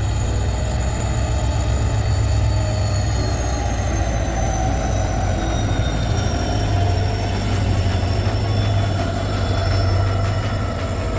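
Indian Railways WDG-4 and WDG-4G diesel locomotives hauling a goods train past, with a steady low engine drone and high whining tones that slowly fall in pitch as they go by.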